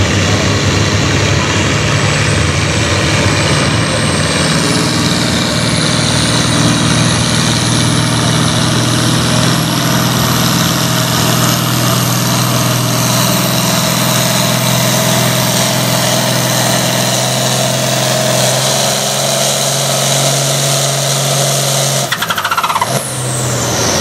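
International Harvester farm tractor's diesel engine running hard and steady under full load, dragging a weight-transfer pulling sled. Near the end the sound breaks off abruptly and a second tractor's engine takes over, with a whine falling in pitch.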